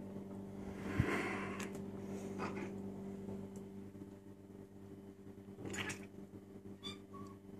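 Cats eating wet food from a plate on a stone counter: faint licking and chewing, with a sharp knock about a second in, over a steady low hum.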